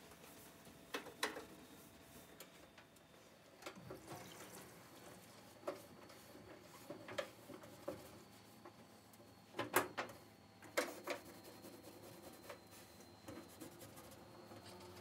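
A cloth rubbing over a gas stovetop as it is wiped down, a faint swishing with a few light knocks, the loudest about two-thirds of the way in.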